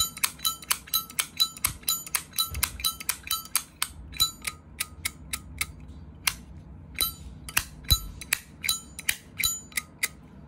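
Zippo lighter lid flicked open and snapped shut over and over, sharp metallic clicks with a bright ring, several a second, with a short pause a little past halfway. It is the lid 'sound' shown off as good ('âm hay'), a sign of a tight hinge and cam.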